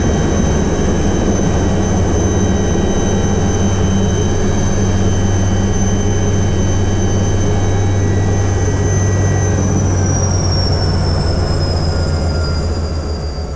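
Alouette III helicopter's turbine and rotor running steadily, with a high turbine whine over a deep rotor drone; the whine glides down a little in pitch about ten seconds in, and the sound fades out at the end.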